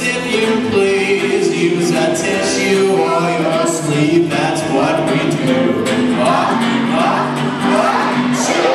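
Music: a children's song being sung, with several voices singing together.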